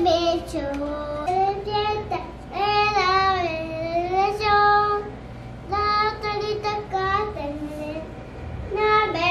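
A young child singing a tune in a high voice, in a run of held, gliding phrases broken by short pauses.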